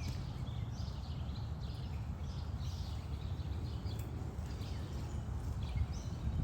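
Birds chirping, short repeated chirps throughout, over a steady low rumble.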